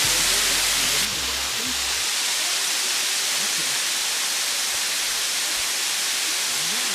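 Waterfall: the steady rush of water pouring into a pool.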